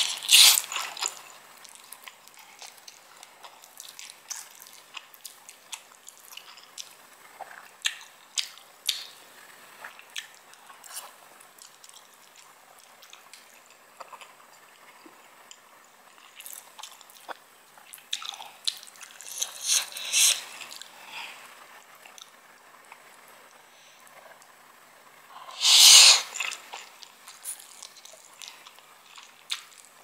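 A person slurping and chewing instant noodles close to the microphone: loud slurps just after the start, again around twenty seconds in and at about twenty-six seconds, with soft wet chewing and small clicks between.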